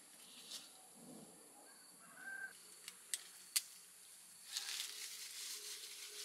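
Faint rustling and crinkling of a white fruit bag being pulled off a picked guava, after a couple of sharp clicks, with a short bird call earlier on.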